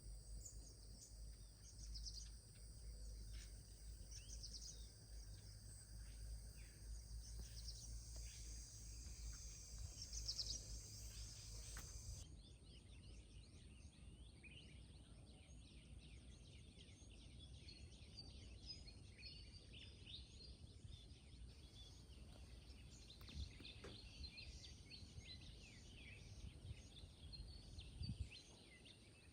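Faint rural ambience: many small bird chirps over a steady high insect drone. A low rumble underneath stops abruptly about twelve seconds in.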